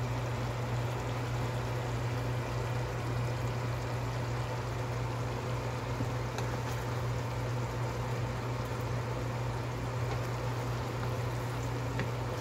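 Coconut-milk sauce simmering in a frying pan, a steady bubbling hiss over a steady low hum, with a wooden spoon stirring through it and a couple of faint taps.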